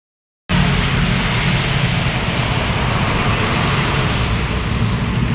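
Road traffic on a wet street: motorcycle and bus engines going by close, over a steady loud hiss of tyres on wet asphalt. It starts suddenly about half a second in.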